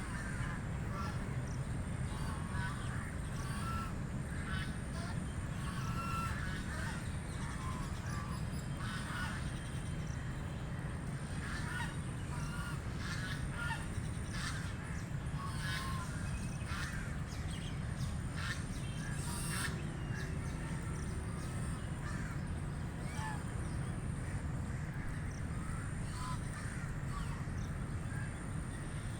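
A flock of white Pekin ducks quacking in many short, scattered calls, thinning out in the second half, over a steady low rumble.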